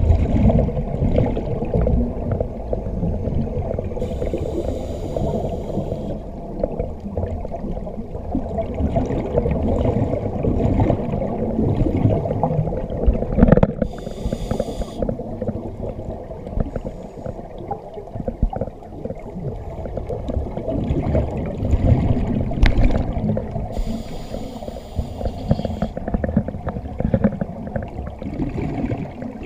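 Scuba diver breathing through a regulator, heard through an underwater camera housing: a continuous low rumble of exhaled bubbles, with a hiss from the regulator about every ten seconds.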